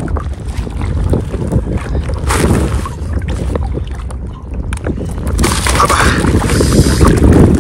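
Wind buffeting the microphone in a steady low rumble, with louder, hissier gusts about two and a half seconds in and from about five and a half seconds to the end.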